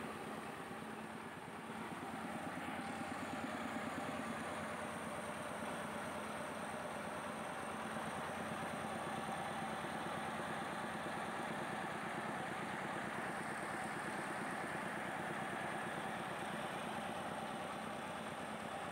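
Mobile rice mill running steadily as it mills paddy into rice, with a continuous engine-and-machine drone. It grows a little louder about a second and a half in, then holds.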